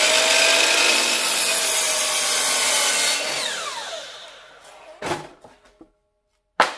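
Electric saw cutting through a wooden 1x6 board: the motor runs at full speed under the loud cutting noise, then is released about three seconds in and its whine falls away as the blade spins down. Two knocks follow, one about five seconds in and a sharper one near the end.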